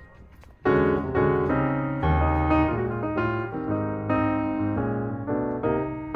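Background piano music: a melody of piano notes that breaks off briefly at the start and comes back in about a second in.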